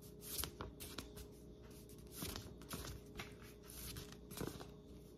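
Faint swishes and rustles of paper flashcards being flipped one after another, a few short strokes about a second apart, over a faint steady hum.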